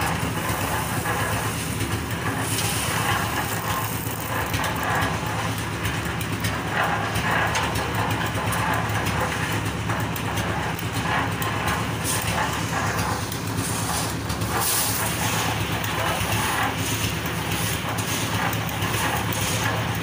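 Engine of a concrete mixer and hoist machine running steadily, a low even drone.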